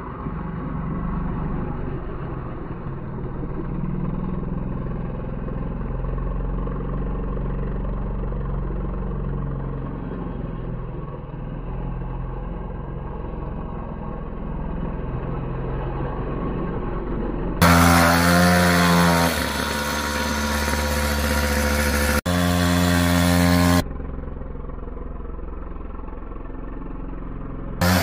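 Mini quad (kids' ATV) engine running and revving as the quad slides around on gravel. About two-thirds of the way through, a louder, clearer stretch begins with the engine revving up, rising in pitch, and holds for several seconds. A short loud burst of the same comes near the end.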